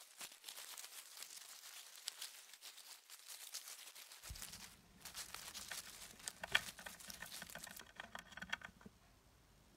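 Rustling and crackling of wood-shavings bedding as a hamster digs through it, a dense patter of small clicks that dies down near the end.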